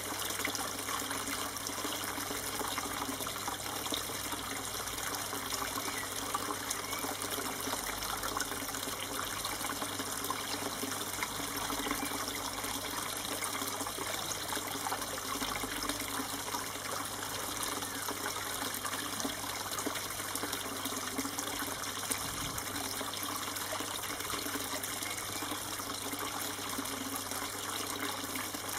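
Steady, continuous noise of running water, an even rushing trickle with no breaks.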